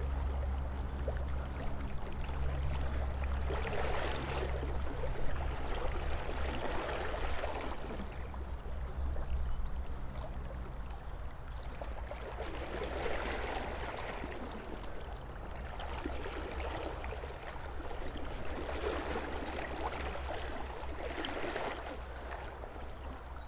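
Shallow river water running and rippling, a steady rushing with a low rumble underneath, swelling and easing three times.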